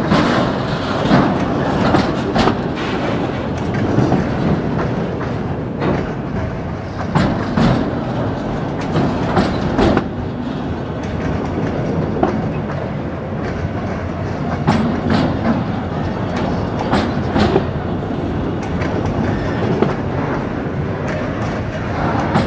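Autorack freight cars rolling past, their steel wheels clacking over rail joints in an irregular string of sharp clicks over a steady rumble.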